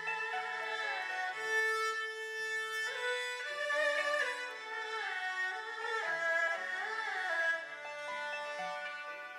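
Instrumental background music: a melody of held and sliding notes over lower sustained accompaniment notes.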